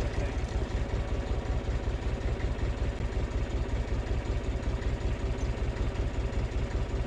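Massey Ferguson 35 diesel tractor engine running at a steady idle, a fast even chugging, while it powers the hydraulic boom lifting a load.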